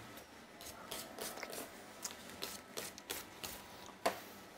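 Wire balloon whisk beating a thick paste in a stainless steel bowl: uneven metallic clicks of the wires against the bowl, two or three a second, with one louder knock about four seconds in.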